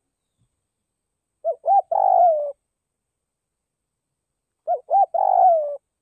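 Spotted dove cooing: two calls about three seconds apart. Each call is two short notes followed by a longer note that slides down in pitch.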